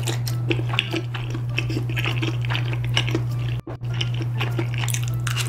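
Ring-fitted training chopsticks clicking against a ceramic plate and stirring through thick, sticky rosé tteokbokki sauce in many small taps, over a steady low hum. The sound drops out very briefly about two-thirds of the way through.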